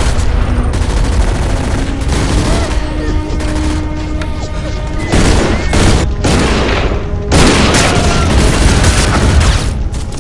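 Film battle sound effects: rapid gunfire and booming blasts over a dramatic music score, with the loudest bursts about five and seven seconds in.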